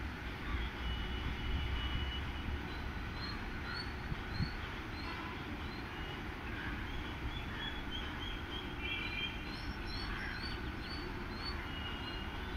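WAP-7 electric locomotive pulling away slowly with a long passenger train, a low steady rumble, while birds chirp repeatedly over it.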